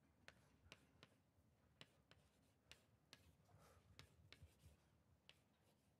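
Chalk on a blackboard, heard faintly: irregular quick taps and short scratches as words are written.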